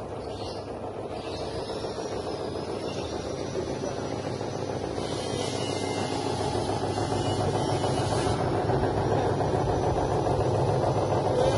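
Drum-type poultry plucker running, its rubber-fingered plate spinning: a steady mechanical hum that grows gradually louder. Water from the feed hose hisses in the drum around the middle and again near the end.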